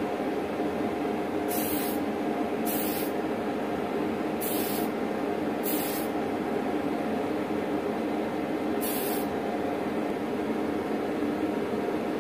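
Tamiya Fine Surface Primer aerosol can spraying primer in five short hissing bursts, each under half a second. The bursts come in three quick pairs of pauses and one longer gap before the last, near the end. A steady hum runs underneath the whole time.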